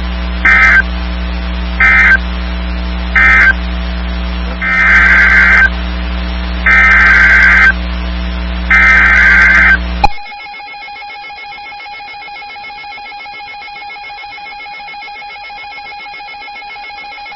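NOAA Weather Radio SAME digital data bursts, the warbling Emergency Alert System tones, heard over a steady radio hum. First come three short bursts, the end-of-message code closing the previous warning. Then come three longer bursts, the header announcing the next warning, after which the hum cuts off and a faint steady tone remains.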